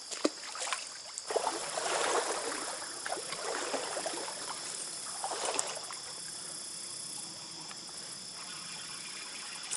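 Stream water splashing and sloshing unevenly, swelling and fading in waves, with a few sharp clicks in the first second or so.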